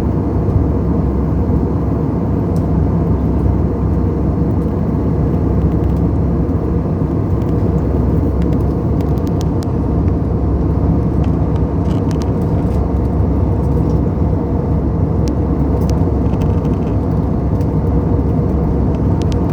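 Airbus A320 airliner noise: a steady low rumble that holds an even level without rising or falling, with a few faint ticks over it.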